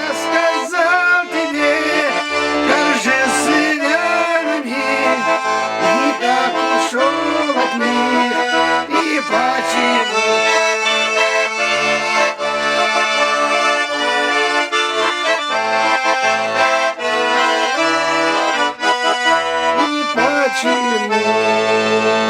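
Russian garmon (button accordion) playing the closing instrumental of a song: a lively melody over a steady, alternating bass-and-chord accompaniment. It ends on a long held chord near the end.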